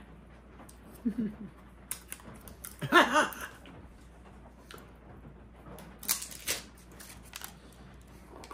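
Hands handling a plastic jar: scattered clicks and scrapes, with a loud crinkling rustle about six seconds in. A short wordless vocal sound from the man about three seconds in.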